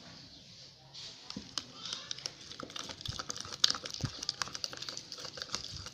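Slime being squeezed and worked by hand, making a dense run of small irregular clicks and crackles that starts about a second in.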